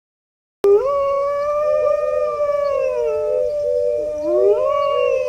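Two canines howling together from about two-thirds of a second in. One holds a long, steady note while the other wavers, dips low and slides back up.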